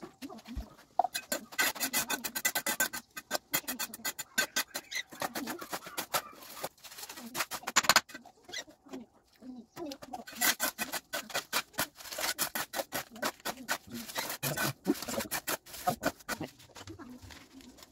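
Steel mason's trowel scraping and chopping through damp cement mix against a concrete floor, in fast repeated strokes that come in bursts of a few seconds with short pauses between.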